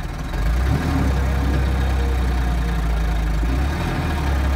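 Farm tractor's diesel engine running under load as it hauls a heavy loaded trailer through soft, muddy ground. The engine gets louder about half a second in, drops briefly near the end, then picks up again.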